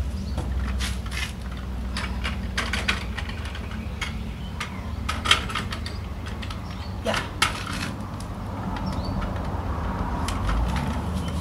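Clear plastic suspended water dispenser clicking and knocking against the wire bars of a metal cat cage as it is worked into place, in irregular clicks, the sharpest about five and seven seconds in, over a steady low hum.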